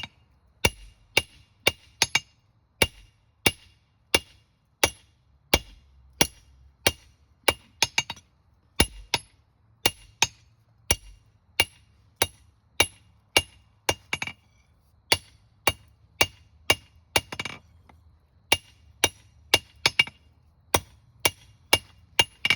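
Blacksmith's hammer striking hot steel on an anvil, drawing out a square taper for a marking stake: steady blows about one and a half a second, each with a bright metallic ring, and a couple of short pauses.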